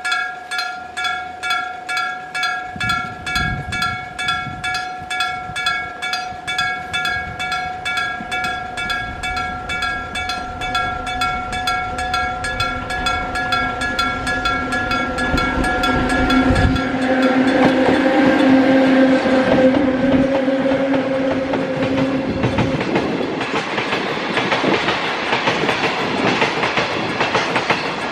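Electric-bell (dentō-type) level crossing warning bell ringing, a fast, evenly spaced run of metallic strikes with a clear multi-tone ring. A little past halfway a train passes over the crossing, its motor hum and wheels clacking over the rail joints covering the bell.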